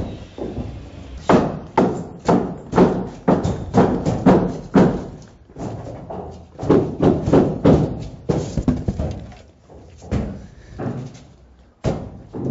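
Runs of knocks and thuds, about two a second, with short pauses between the runs: expanded-polystyrene ICF foam blocks being tapped down onto the course below so their joints lock tight.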